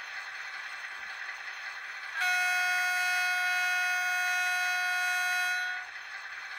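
Sound decoder of a Fleischmann N gauge DR class 112 (ex-V100) diesel locomotive model sounding its long horn through the model's small speaker. The horn is one steady note that starts about two seconds in and holds for about three and a half seconds before cutting off, over a steady hiss.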